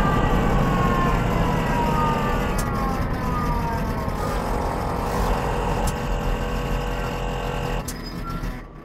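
Roborace DevBot electric race car's drivetrain whine, several tones gliding steadily down in pitch as the car slows to a stop, over road and wind noise. The noise drops away sharply near the end.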